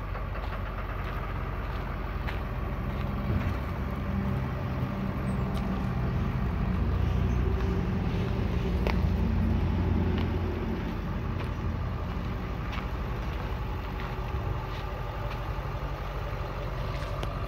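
Diesel engine of a 1996 International 4700 dump truck running as the truck drives slowly, a low rumble that grows louder through the middle and eases off after about ten seconds.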